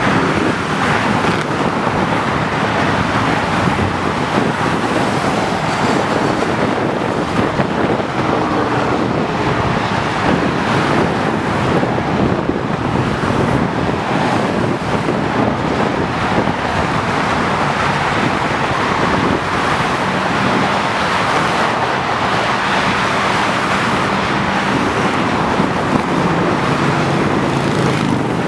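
Freeway traffic noise from many cars passing on a multi-lane highway, their tyres and engines blending into one steady, continuous rush.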